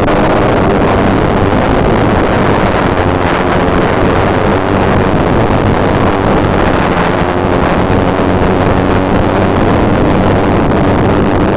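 Analog synthesizer playing a dense, noisy drone, a steady wash of rushing noise over a low hum, with no clear beat.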